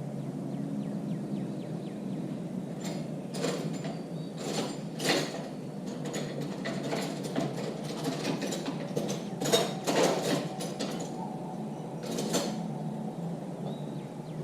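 Irregular metallic clicks and clinks of 10 mm wrenches being handled and turned on the bolts clamping a dirt bike's clutch lever, over steady background noise.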